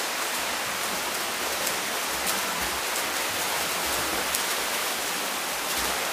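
Steady splashing and churning of pool water from water polo players swimming and fighting for the ball, with a few faint knocks.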